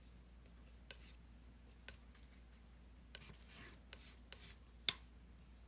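Palette knife working oil paint on a palette: soft scrapes and scattered light clicks, the sharpest about five seconds in.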